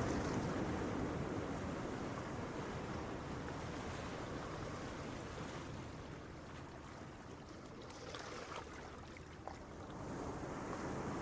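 Gentle ocean waves breaking on a beach: the wash ebbs away over several seconds and builds again as the next wave comes in near the end.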